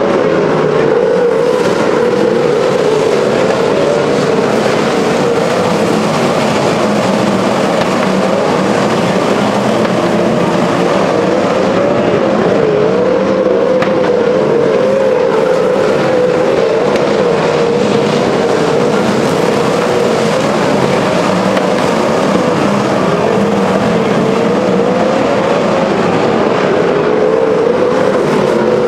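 Winged sprint car engines running loud and continuously on a dirt oval. The engine note wavers up and down in pitch over and over.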